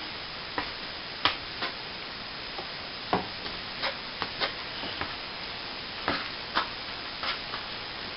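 Plastering trowel working cornice cement on a plasterboard ceiling patch: irregular short scrapes and taps, about a dozen over the stretch, with no steady rhythm.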